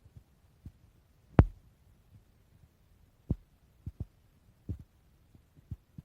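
Stomach gurgling heard up close: a string of short, irregularly spaced low pops over a faint rumble, the loudest about a second and a half in.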